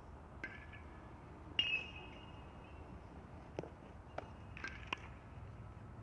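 Several sharp cracks of a metal baseball bat hitting balls, each with a short metallic ring; the loudest comes about a second and a half in and another pair near the end. A few duller knocks fall between them.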